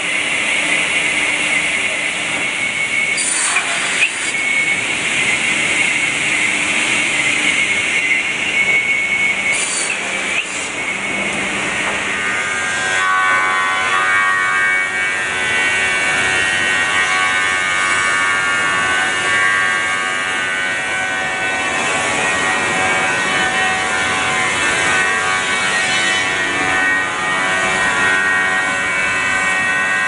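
Machinery of an automated timber sawing and branding line running steadily, saws and conveyors going together. A high steady whine with two sharp clacks gives way partway through to a denser whine of several tones.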